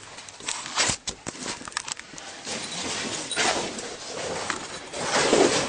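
Handling noise of someone climbing through a tight rock crevice: clothing and gear rustling and scraping against the rock, with a quick run of sharp clicks and knocks from about half a second to two seconds in.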